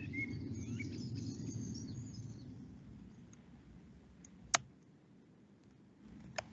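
Woodland ambience from a read-aloud video's soundtrack: birds chirping over a low rumble, fading out about three seconds in. Then near silence, broken by a sharp click about halfway through and another near the end.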